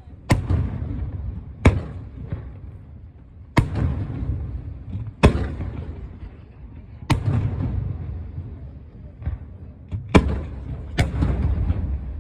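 Firework shells bursting overhead, about eight sharp bangs a second or two apart, each followed by a low rumbling echo.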